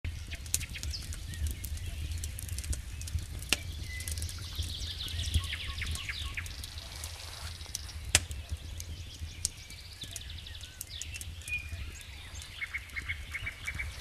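Wood campfire crackling, with sharp pops of burning wood scattered throughout; the loudest comes about eight seconds in. Birds chirp in the background, with a quick run of short notes near the end.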